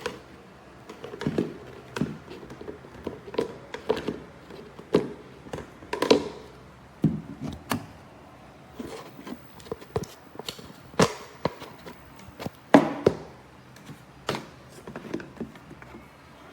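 A series of irregular knocks, taps and light thunks, one or two a second, like hard objects being handled and set down.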